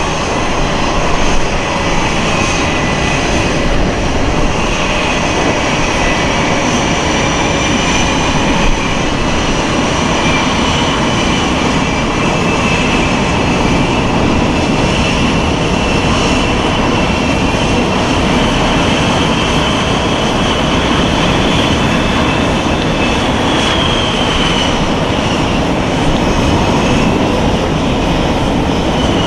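Boeing F/A-18E/F Super Hornet jet engines running at low power, a loud steady rush with a high whine.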